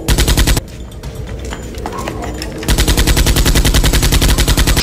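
Rapid machine-gun fire: a short burst of about half a second, then a longer burst of about two seconds near the end, over quieter background music.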